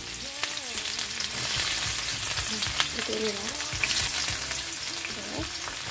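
Chopped shallots, garlic and ginger frying in hot oil in a wok: a steady sizzle with many small crackles.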